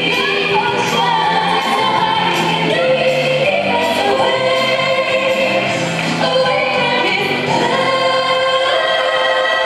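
Music with choral singing of long held notes: the accompaniment for a synchronised swimming routine.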